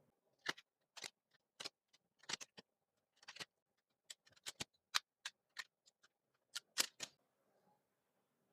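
Irregular run of small, sharp clicks and taps from a smartphone and its back glass being handled and pressed during a repair. About twenty of them, stopping about seven seconds in.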